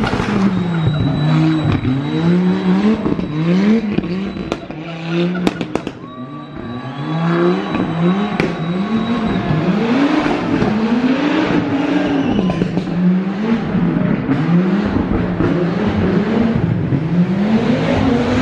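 Rally car engine revving hard on a stage, the revs climbing and dropping again and again through the gears and corners, with a few sharp cracks about five seconds in.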